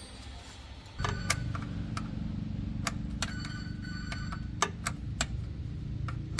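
Metal clinking against metal, about eight sharp ringing clinks spread irregularly, over a steady low rumble that starts about a second in.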